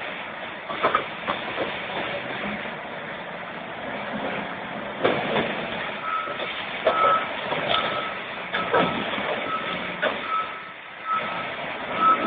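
A heavy vehicle's reversing alarm beeping steadily, about two beeps a second, starting about halfway through. Irregular knocks and clatter run underneath.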